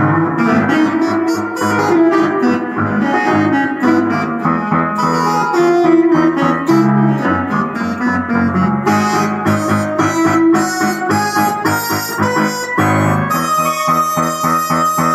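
Two stacked electronic keyboards played at once: a digital piano under the right hand and a second keyboard above it under the left. The playing is dense and fast, with many quick notes, and a held high note comes in near the end.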